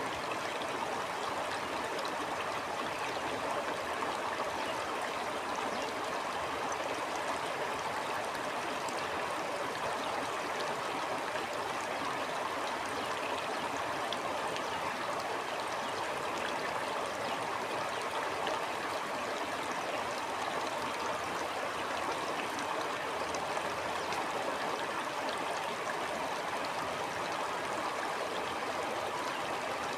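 Stream water flowing and gurgling steadily, an even rushing wash with fine splashing detail.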